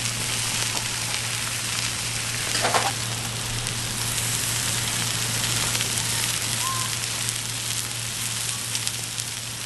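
Food sizzling as it fries in a pan, a steady hiss over a low steady hum, with a brief clatter about three seconds in.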